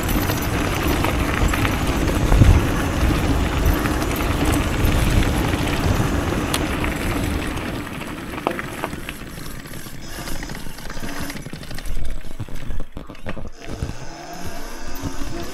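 Wind rushing over the microphone and tyres crunching on gravel as a 72 V electric downhill bike rides fast along a dirt track. The noise thins out as the bike slows, and near the end the electric drive's whine rises in pitch as it accelerates again.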